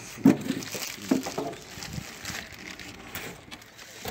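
A large cardboard shipping box being handled: cardboard scraping and rustling, with a sharp knock about a third of a second in and a few lighter knocks soon after.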